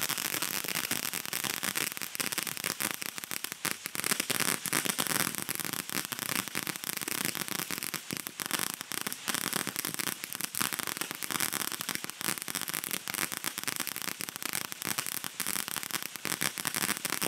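Fireworks going off in a dense, continuous crackling with many sharp pops, and no single big bang standing out.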